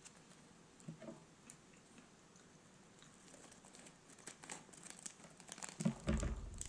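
Plastic snack packet of bite-sized crackers crinkling as it is handled and opened, the crackling faint and sparse at first and growing busier over the last few seconds, with a low bump near the end.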